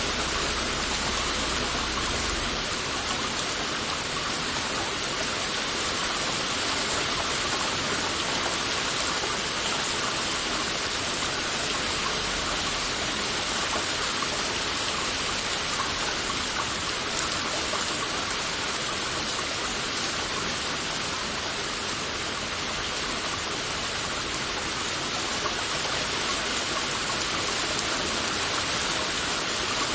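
Heavy rain falling steadily, a dense even hiss of drops with no thunder or other distinct sounds.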